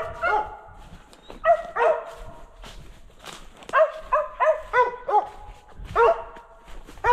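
Mountain cur barking repeatedly in short bunches of sharp barks, the way a squirrel dog barks at a squirrel it has located.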